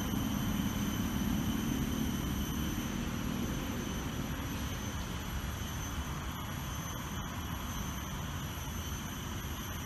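Steady outdoor background rumble, with a low hum that fades away over the first few seconds and faint steady high-pitched tones above it.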